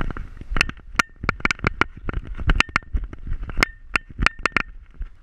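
Metal clinks and rattles from a Pointer's collar and back-mounted camera harness as the dog runs, over a low rumble of movement and wind on the microphone. The clinks come in irregular clusters, a few of them ringing briefly.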